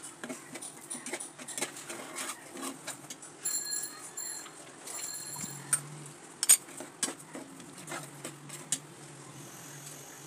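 Spatula stirring a thick, wet vegetable mash in a pan, knocking and scraping against the pan in irregular clicks.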